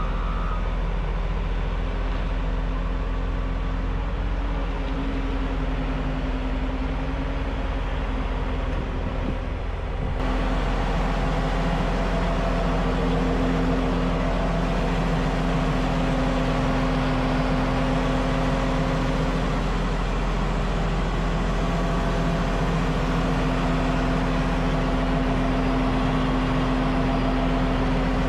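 CAT C18 inline-six turbo diesel of a 988H wheel loader running steadily. A reversing alarm beeps a few times right at the start. About ten seconds in, the engine sound steps up suddenly to a louder, fuller running.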